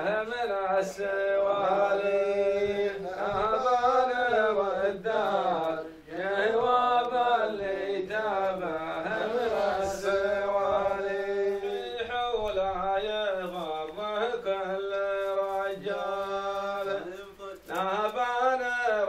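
A man's voice chanting a slow melody on long held vowels that swell and bend in pitch, in the drawn-out style of sung Bedouin Nabati poetry.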